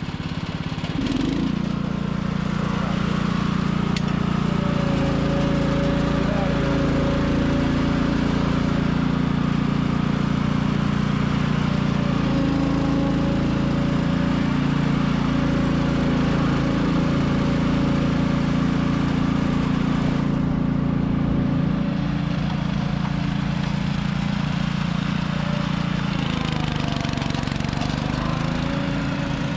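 Small engine of a Vezos PS200 line-striping machine with Prodriver HD ride-on, revved up about a second in and then running steadily. Its pitch dips and comes back up near the end.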